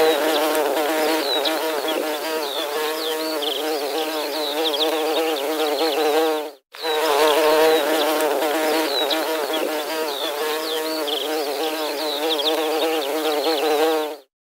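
Many bees buzzing together: a dense hum of overlapping, wavering wing-beat tones with small high chirps over it. It cuts out for a moment about six and a half seconds in, starts again, and stops just before the end.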